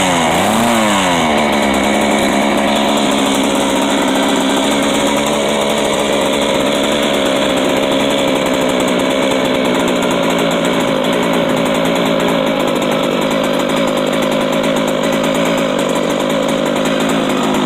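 Poulan 5400 two-stroke chainsaw engine running unattended: its speed rises and falls in quick regular surges for the first second or so, then it settles into a steady idle.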